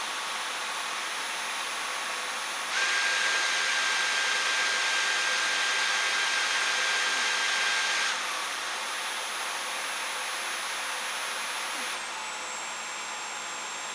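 Dyson V11 cordless stick vacuum running with a steady high motor whine. About three seconds in it gets louder, with an extra steady tone, for about five seconds before settling back, and about twelve seconds in the high whine steps down in pitch and the sound drops a little.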